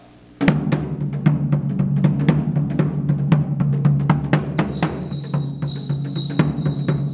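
Korean traditional drums struck in a fast, driving rhythm as mask-dance accompaniment, starting suddenly about half a second in. A high metallic ringing joins near five seconds in.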